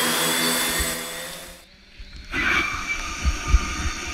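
Waterproof quadcopter's motors and propellers giving a steady multi-tone whine that fades and cuts off about a second and a half in. After a short gap comes a muffled hiss with low thumps, as water and wind hit the camera housing.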